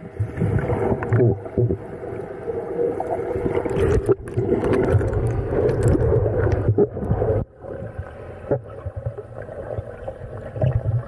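Muffled underwater rushing of water against the camera's waterproof housing during a freedive descent, with scattered clicks and knocks. It drops suddenly in level about seven and a half seconds in.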